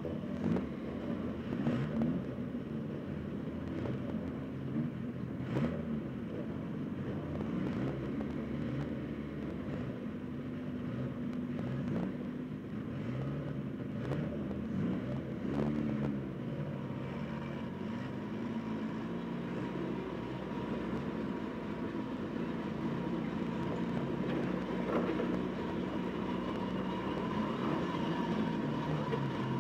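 Banger racing car's engine running, heard from inside the stripped-out car: idling with a few knocks and a brief rise and fall in revs about halfway through, then steadier as the car rolls slowly forward near the end.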